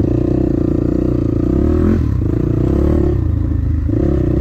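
Dirt bike engine running while riding a rough trail, the revs rising and falling as the throttle opens and eases off a few times.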